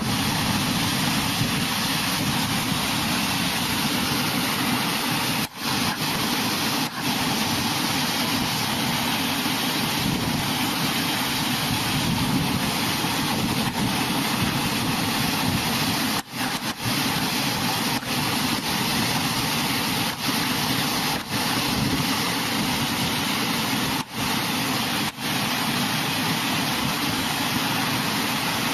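Steady roar of fast-flowing floodwater, broken by several brief dropouts.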